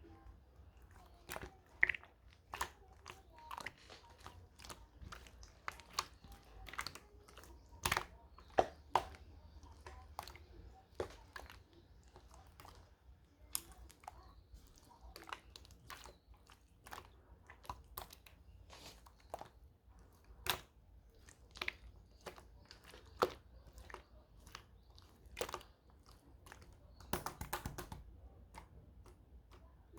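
Slime being squeezed and poked by hand: irregular sharp clicks and pops, roughly one a second, with a brief run of crackling near the end.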